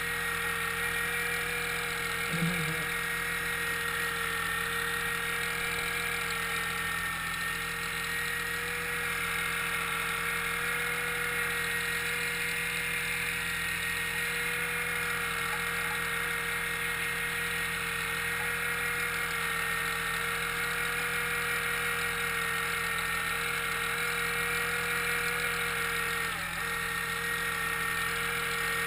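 A trawler's diesel engine running steadily under load as the boat tows its nets, with a constant mechanical whine and water rushing along the hull.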